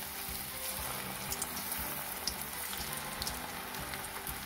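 Batter-coated cauliflower florets deep-frying in hot oil: a steady sizzle of bubbling oil with a few sharp crackles in the middle.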